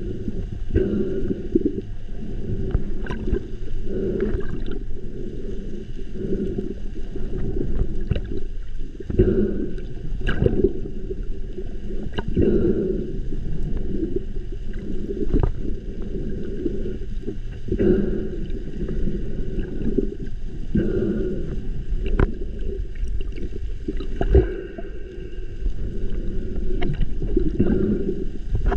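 Muffled underwater noise picked up by a camera in the water: a low churning of moving water that swells every second or two, with a faint steady hum and scattered sharp knocks.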